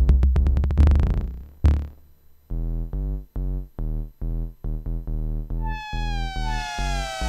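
Electronic synth jam on Korg Volca groove boxes: a drum machine pattern stops about a second in. A few seconds in, a bass synth starts a pulsing repeated note, about two a second. Near the end a high synth tone joins, gliding slowly downward in pitch.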